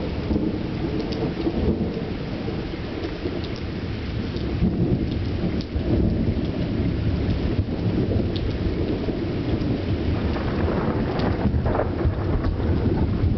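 Thunder rumbling on and off beneath steady rain, the rumble growing a little louder about five seconds in.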